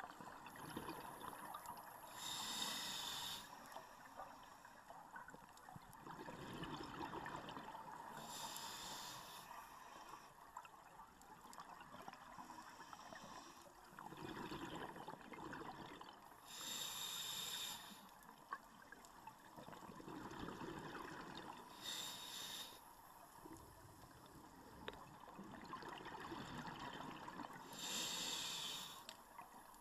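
A scuba diver's regulator breathing, heard underwater: five short hissing inhalations about six seconds apart, each followed by the bubbling of an exhalation.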